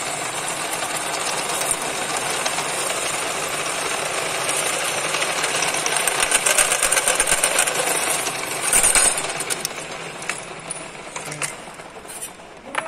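Drill press running, its bit cutting through a thin metal disc with a rapid chattering. The cutting noise is loudest around nine seconds in, then eases off, and a sharp clank comes near the end.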